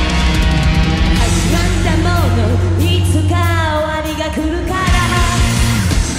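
Live rock band playing a heavy, guitar-driven song with a woman singing. Near the middle the low end drops away for about a second under a sung line, then the full band comes back in.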